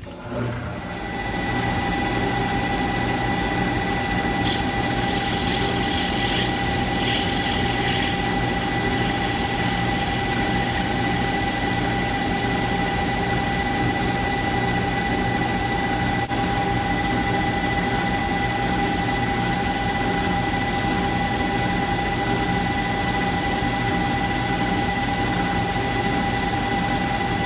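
Clausing manual metal lathe running steadily with a constant whine, coming up to full level over the first second or two. A high hiss joins in from about four and a half to eight seconds in.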